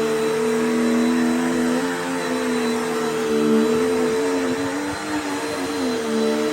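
Dirt Devil Power Max Pet upright vacuum cleaner running, its motor whine dipping briefly in pitch a few times as it is pushed along.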